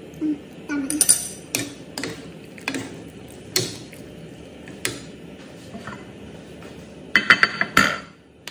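Wooden and plastic spatulas knocking and scraping against a non-stick frying pan as vegetables are stir-fried, in separate knocks spaced about half a second to a second apart. Near the end comes a quick run of clattering clinks with a ringing tone.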